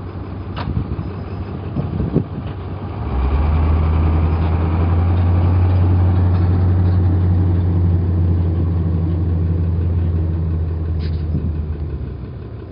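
A heavy farm vehicle's engine running steadily, growing louder about three seconds in as it works harder, then easing off near the end.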